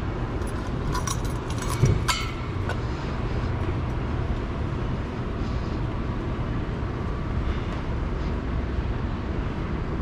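Climbing a tall caged steel ladder: a cluster of metal clinks and taps from gloves, boots and hanging gear on the rungs in the first two seconds, with one thump about two seconds in, over a steady low rumble.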